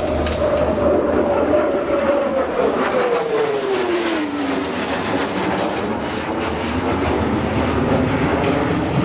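F-15 fighter jet's twin turbofan engines running loud as the jet passes overhead. The engine tone drops steadily in pitch about two to four seconds in as the jet goes by and moves away.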